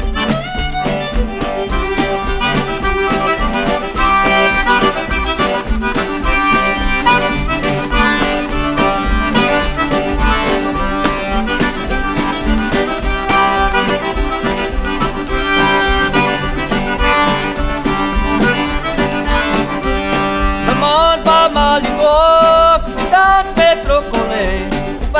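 A Cajun band plays an instrumental break led by a single-row diatonic button accordion, over fiddle, guitar and a steady dance beat. About 21 seconds in, a new melody line with a wavering, sliding pitch comes in over the band.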